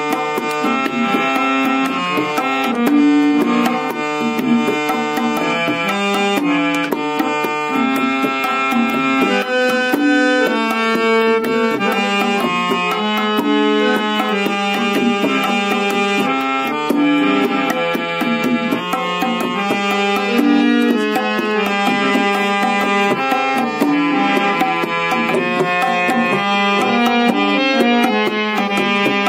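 Instrumental harmonium and tabla duet: the harmonium's reeds play a melody in sustained notes that change in steps, over a running pattern of quick hand-struck tabla strokes.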